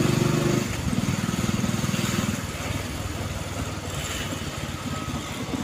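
Motorbike engine running while riding along a street, louder for the first couple of seconds, then easing off to a lower, steady run, with rushing road and wind noise over it.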